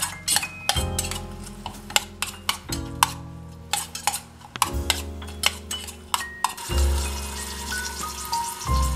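A tiny metal spoon clicks and scrapes against a miniature saucepan as ground pork is stirred, over background music. Food sizzles in the pan in the last couple of seconds.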